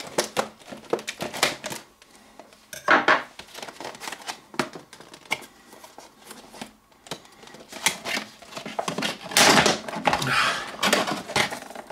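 Stiff clear plastic clamshell packaging being cut with a knife and pried apart by hand: irregular crackling and clicking of the plastic, with louder bursts of crinkling about three seconds in and again near the end.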